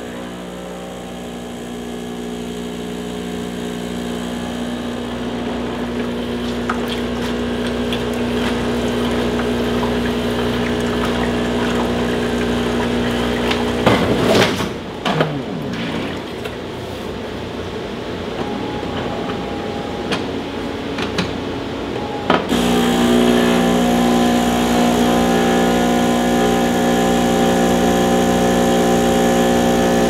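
Miele 6310/6350 bean-to-cup espresso machine running its automatic milk-pipe rinse: the pump hums steadily, a brief burst of noise breaks in about halfway through, and then the pump hums again, louder, for the last several seconds.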